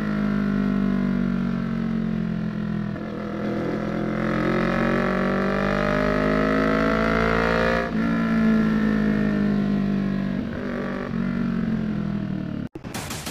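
CFMoto 400NK's 400cc parallel-twin engine running loud through an SC-Project slip-on muffler with no silencer while being ridden. The engine note falls, then climbs steadily under acceleration for about five seconds, drops at a gear change, and changes again near the end; the sound cuts off abruptly just before the end.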